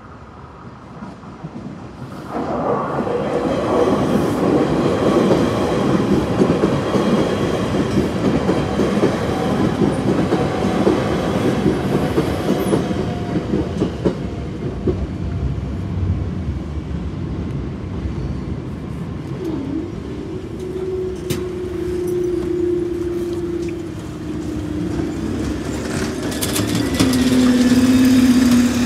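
A London Overground Class 378 electric multiple unit passing at speed over the level crossing, its wheels clattering rapidly over the rail joints. It comes in loud about two seconds in and fades away after about halfway. Near the end a road bus's engine runs as traffic moves off over the crossing.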